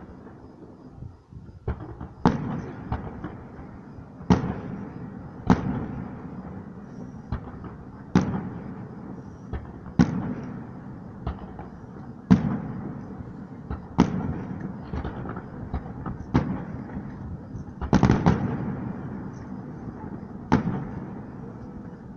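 Aerial firework shells bursting in a series of sharp bangs, roughly one every two seconds, each trailing off in an echo.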